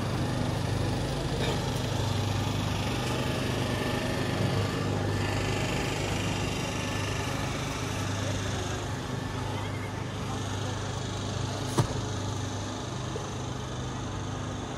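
Street traffic: a vehicle engine running steadily with a low hum over general city noise, and one sharp click about twelve seconds in.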